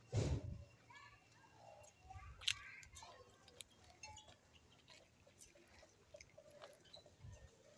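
Faint short animal calls from livestock or poultry, with a low thump on the microphone at the start and a sharp tap about two and a half seconds in.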